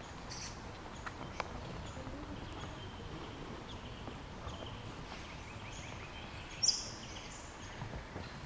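Forest ambience: a steady low background rumble with faint bird calls and a few light footfalls on the walkway. A brief, sharp, high-pitched sound stands out about two-thirds of the way through.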